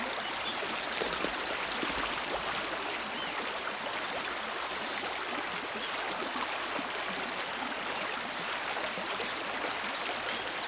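Creek water running steadily, an even rushing burble with a few faint clicks about a second in.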